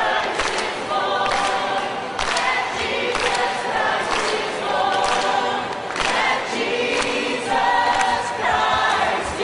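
A large choir singing, many voices together on held chords.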